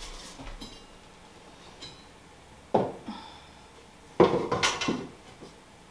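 Decorations being handled and set down on a fireplace mantel: a few sudden knocks and clinks with brief ringing, one at the start, one near three seconds and a louder pair a little after four seconds.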